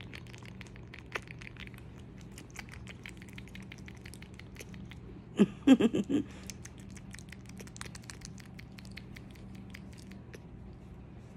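Soft clicks, taps and rustles from close handling as a baby monkey clambers over a shirt near the phone, over a faint steady hum. About halfway comes a short burst of a person's voice, the loudest sound.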